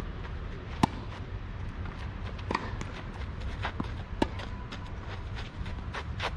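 Tennis rally on a clay court: two sharp, loud racket hits from the near player, about a second in and again about three and a half seconds later, with fainter hits and ball bounces from the far end between them.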